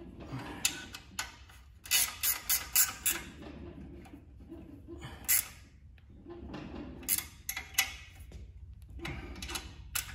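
Ratchet wrench clicking in short runs with pauses as bolts on an engine's cylinder head are run down and tightened.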